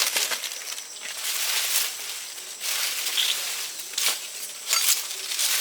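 Rustling and crunching, with a few sharp crackles spread through it.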